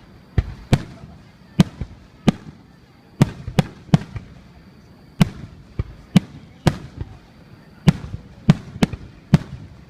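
Fireworks going off in an irregular series of sharp bangs, about fifteen of them, some in quick pairs, each with a short rumbling tail.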